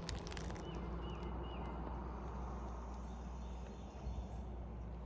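Outdoor ambience with a steady low rumble, and a small bird chirping three times in quick succession in the first two seconds.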